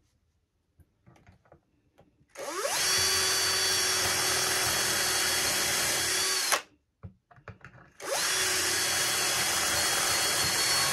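Cordless drill boring a hole through a white oak and epoxy board, in two runs of about four and three seconds, each starting with a rising whine as the motor spins up, with faint handling clicks in the pause between.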